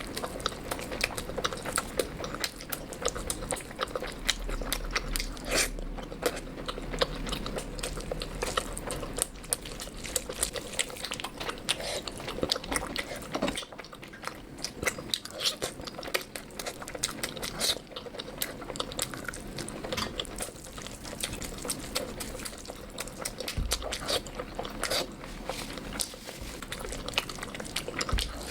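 Close-miked eating sounds of a curry meal: wet chewing and mouth smacking with dense, irregular small clicks and crunches.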